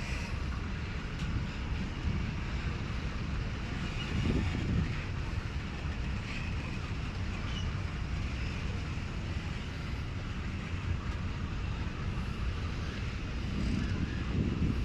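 Train running past, a steady low rumble with a fainter hiss and rattle higher up, swelling slightly about four seconds in and again near the end.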